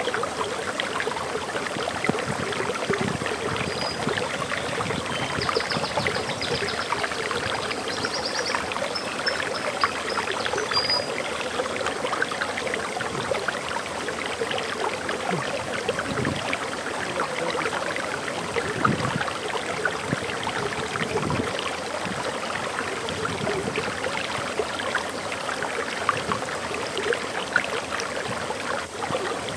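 Waterfall flowing steadily: a continuous splashing rush of water. A few faint high bird chirps come through between about four and eleven seconds in.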